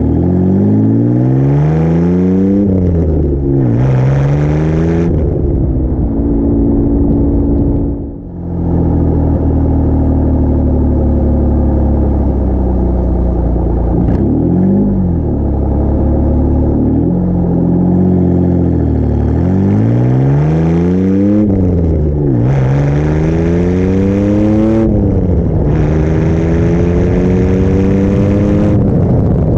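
Car exhaust running through a homemade compact straight-through muffler, heard at the tailpipe while driving. The engine pulls up through the gears several times, its pitch rising under acceleration and dropping at each upshift, with steady stretches at cruise between.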